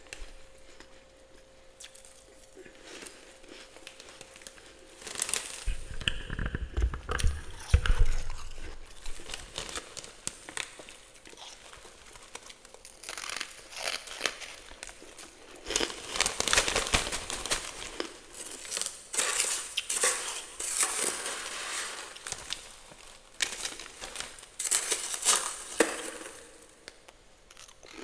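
Freezer frost being scraped and handled, with crunching and rustling in irregular bursts and a few low knocks about six to eight seconds in.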